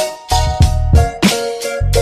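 Background music with a steady beat and a melody line.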